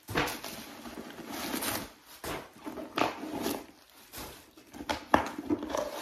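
Stuffing paper being pulled out of a new handbag, rustling and crinkling in irregular handfuls, with a sharp crackle about five seconds in.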